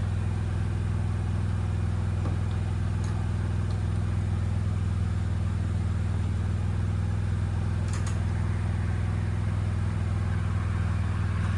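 A steady, low mechanical hum like an idling engine or motor, unchanging throughout, with a few faint metallic clicks.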